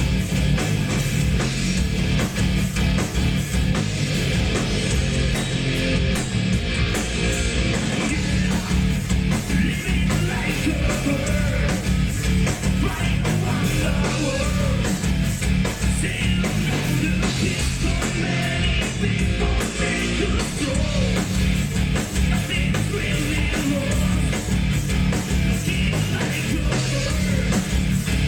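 Heavy metal song with distorted electric guitars, bass and drums, and a sung vocal line over them.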